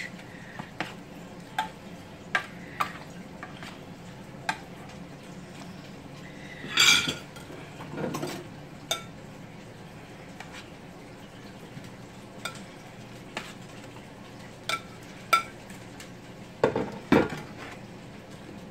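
Metal slotted spoon clinking and scraping against a metal sheet pan while scooping up roasted vegetables: scattered light taps, a louder clatter about seven seconds in, and two heavier knocks near the end.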